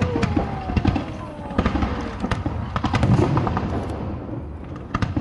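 Aerial fireworks going off: a dense run of sharp bangs and crackling pops over a low rumble, with a whistle falling steadily in pitch over the first two seconds.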